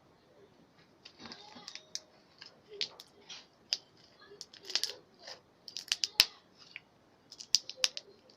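Irregular sharp clicks and snaps, sometimes several a second, from small objects being handled close to the microphone; the loudest comes about six seconds in.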